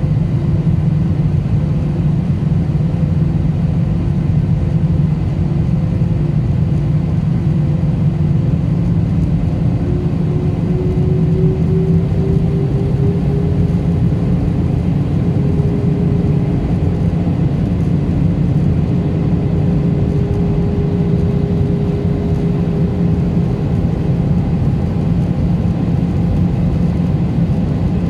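Airbus A320 cabin noise heard from a window seat over the wing: the steady rumble of the jet engines and airflow. About ten seconds in, an engine tone glides up a little in pitch and then holds at the higher pitch.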